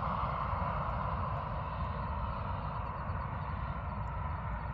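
Steady, distant engine drone that slowly fades, over a low rumble.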